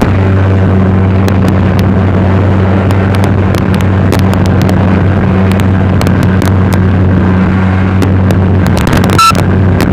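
Speedboat engine running steadily at speed, a constant low hum, with many short knocks as the hull runs over choppy water. A brief louder burst comes about nine seconds in.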